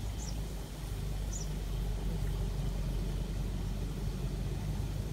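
A steady low rumble, with two short high bird chirps, the first just after the start and the second about a second and a half in.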